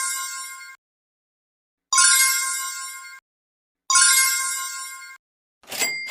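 A bright bell-like chime sound effect ringing three times, about two seconds apart, each ring dying away over about a second. A short rising noisy swell starts just before the end.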